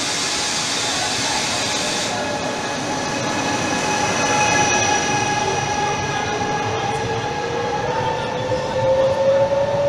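Electric passenger train pulling out of an underground station: wheels rumbling on the rails and a whine from the traction motors that rises steadily in pitch as it accelerates away. A loud hiss cuts off about two seconds in.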